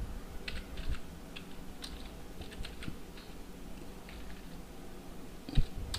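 Computer keyboard typing: soft, scattered keystrokes at an unhurried pace, with a slightly heavier key press near the end.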